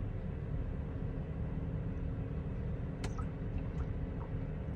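Steady low mechanical rumble with a faint hum, and a faint click about three seconds in.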